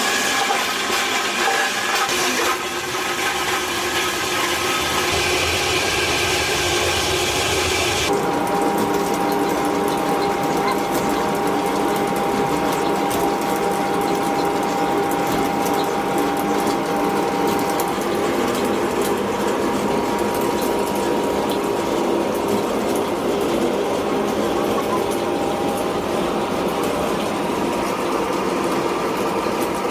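Plastic-recycling factory machinery running continuously with a dense mechanical clatter. About eight seconds in the sound changes abruptly to a different machine, with a steady tone running under the noise.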